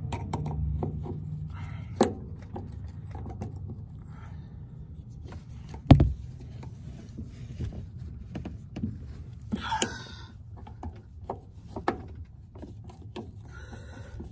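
Screwdriver clicking and scraping on the small hold-down screws of a fuel pump's top cover as they are loosened, with light knocks from handling. One loud thump comes about six seconds in.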